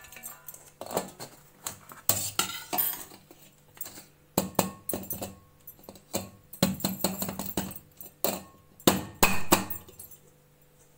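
Irregular clinks and knocks of a steel plate against an aluminium cake tin as the tin is turned upside down on the plate and handled to release the cake, quieter near the end.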